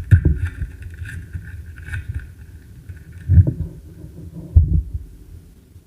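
Hands handling trading-card packs and cards close to the microphone: dull, low bumps and handling rumble, with three louder bumps, about a second apart near the start and then two more about a second apart later.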